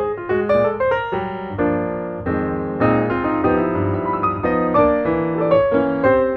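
Piano music: quick runs of notes over held chords.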